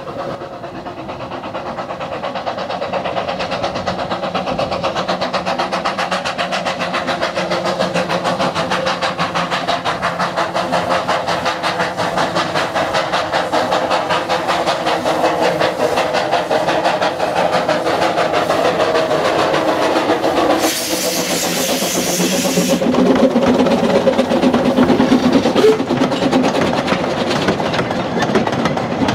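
Narrow-gauge steam tank locomotive working a passenger train, its exhaust beating fast and growing louder as it approaches. About twenty seconds in there is a burst of hissing steam lasting a couple of seconds, then the clatter of the carriages passing.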